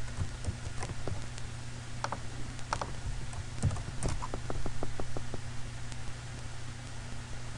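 Computer keyboard and mouse clicks: scattered single clicks, then a quick, evenly spaced run of about ten taps about four seconds in, over a steady low hum.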